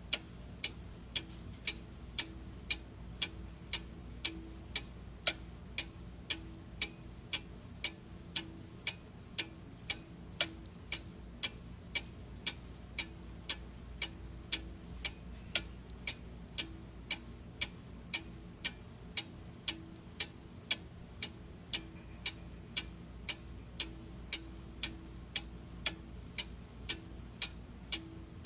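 A clock ticking steadily at about two ticks a second, with a faint low hum beneath.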